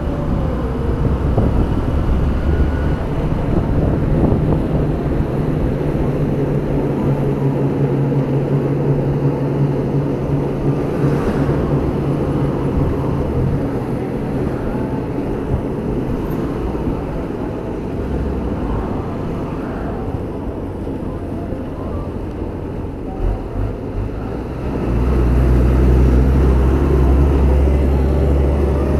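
Hero Hunk motorcycle's single-cylinder engine running steadily while riding in traffic. The low rumble gets louder near the end.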